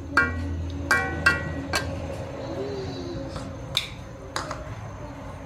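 A metal spatula stirring water spinach in a wok, knocking against the pan in about six sharp metallic clinks, some ringing briefly.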